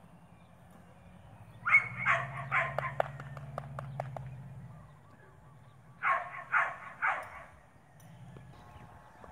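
An animal giving short, loud calls in two runs: about five in quick succession starting near two seconds in, then three more about six seconds in. A few sharp clicks fall between the first calls.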